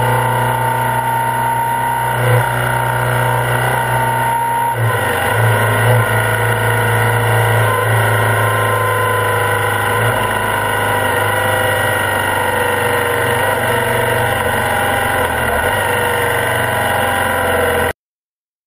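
BMW R65's air-cooled boxer twin engine running steadily at road speed, its tone shifting about five seconds in. The sound cuts off abruptly near the end.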